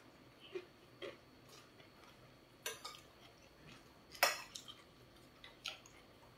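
Metal fork and spoon clinking and scraping against a plate while eating: a handful of separate faint clicks, the loudest a little past four seconds in.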